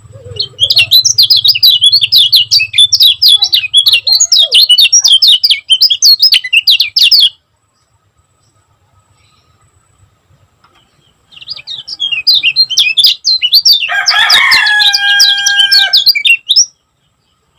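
Kecial kuning, a Lombok white-eye, singing in quick, tightly packed strings of high chirps (the 'speed rapat' style). It sings two long bursts, a few seconds apart. The second burst has a few held whistled notes under the chirping.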